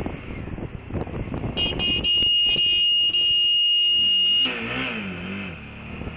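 Vehicle horn held for about three seconds, with a tiny break midway, as a warning to a car pulling out in front of the motorcycle. Around it, wind rush on the helmet microphone and the motorcycle's engine, whose note wavers and drops after the horn stops.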